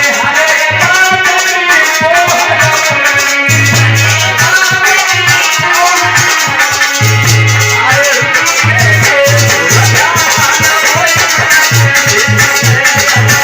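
Loud Indian folk song: a melody that bends in pitch over a steady low drum beat and rattling percussion.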